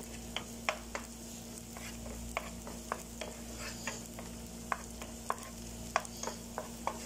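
Wooden spatula stirring chopped shallots and garlic in a non-stick frying pan, knocking and scraping against the pan in irregular light taps, about two to three a second, over a faint sizzle of frying oil.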